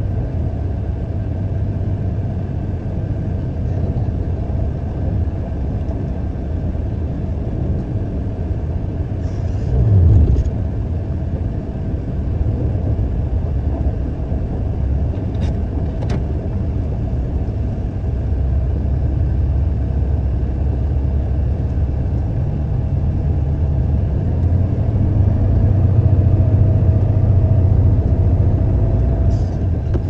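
Heavy diesel truck running while driving, a steady low rumble. About ten seconds in there is a brief louder surge with a dip in pitch, and the engine grows louder over the last several seconds.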